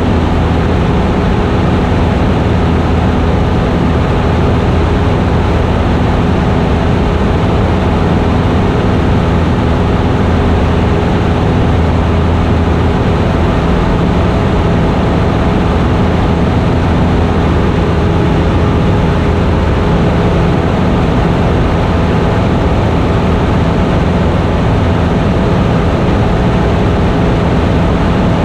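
Single-engine Cessna's piston engine and propeller running steadily in flight, heard from inside the cockpit as a loud, even drone with no change in pitch.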